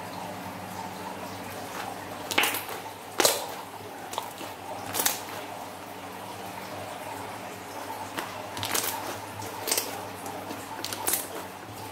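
Thick, glossy slime being stretched and squeezed by hand, squishing wetly with a sharp pop every second or two as trapped air bursts.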